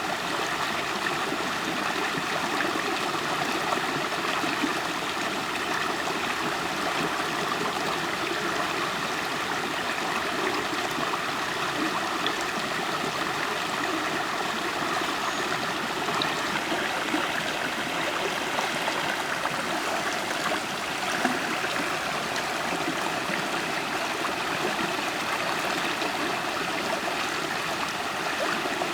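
River water flowing and gurgling, a steady rush.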